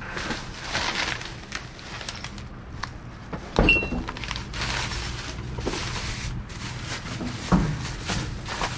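Discarded items being rummaged through and shifted in a dumpster: rustling and scraping with two sharp knocks, the first about three and a half seconds in with a brief high ring, the second near the end.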